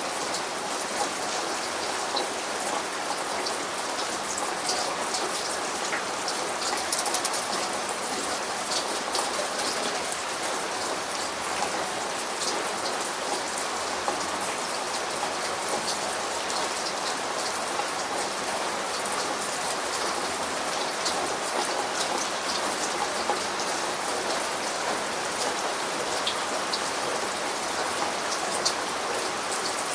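Steady rain falling, the drops pattering on a surface, with many small, sharp drop ticks over an even hiss.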